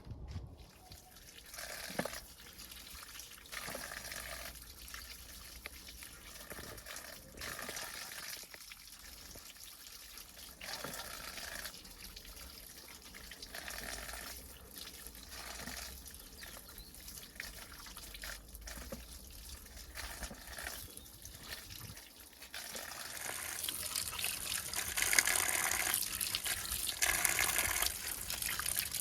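Running water, starting loud near the end after a stretch of faint scattered knocks and handling sounds.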